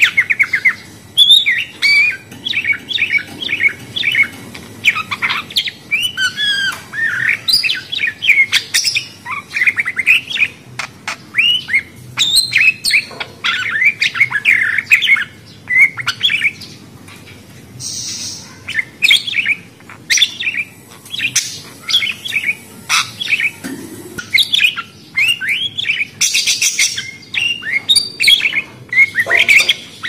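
Small parrots chirping and chattering: a rapid, continuous stream of short warbled and squawky calls rising and falling in pitch, with a brief lull just past halfway.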